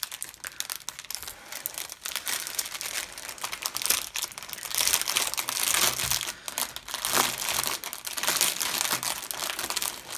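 Clear plastic packaging crinkling and rustling as hands handle and open a sleeve of bagged diamond painting drills, irregular crackling that gets busier in the second half.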